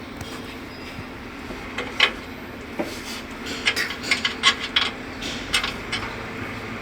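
Metal tools and parts clinking and tapping during hand work on the hose fittings: a sharp click about two seconds in, then a run of quick clinks from about three and a half seconds in, over a steady low hum.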